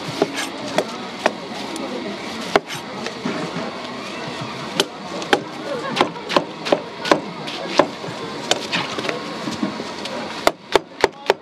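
A long kitchen knife cutting up a whole watermelon on a cutting board. It makes irregular knocks as the blade pares off the rind and hits the board. Near the end these become a quick run of chops as the fruit is sliced.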